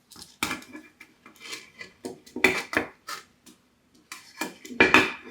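Small metal doorbell mounting hardware clinking and clattering as it is handled and fitted: a string of light clicks and taps with a slight metallic ring, loudest near the end.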